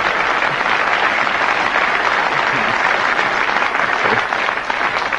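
Studio audience applauding steadily, a dense patter of many hands clapping, easing off a little near the end.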